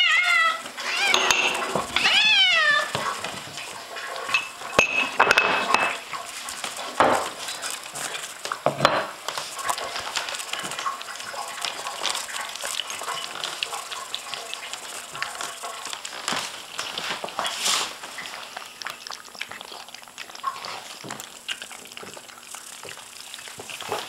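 Hungry kittens meowing several times in the first three seconds. Then come scattered clicks, knocks and clatter of food bowls as the kittens eat.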